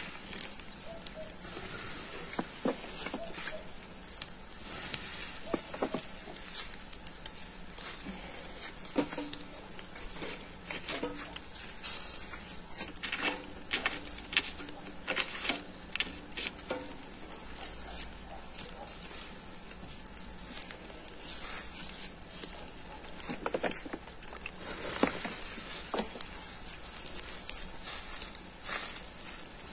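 Shashlik sizzling in a wire grill basket over hot charcoal, with a steady hiss and irregular crackles and pops from the coals.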